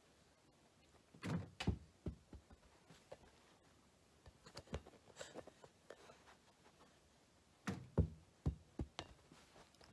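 A small rubber ball thudding and knocking about on the floor and toys: a quick run of several dull thumps about a second in, lighter knocks in the middle, and another run of thumps near the end.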